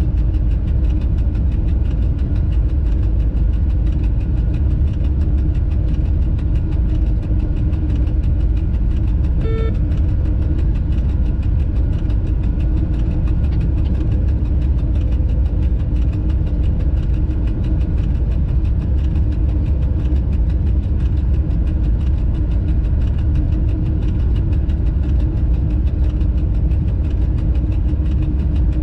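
Steady low rumble and hum inside a freight locomotive's cab, with a short beep about a third of the way in.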